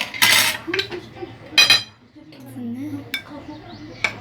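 A metal spoon scraping and clinking against a glass serving cup while dessert is spooned in. There is a short scrape near the start and one bright ringing clink about a second and a half in.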